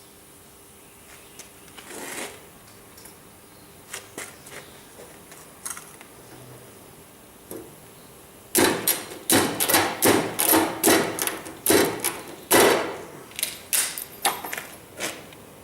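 A few scattered light clicks and taps, then about halfway through a run of sharp, loud knocks, two to three a second, that stops near the end.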